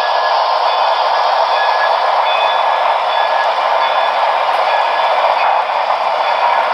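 Model train running on the layout: a steady rushing noise with short, faint squeaky tones coming and going.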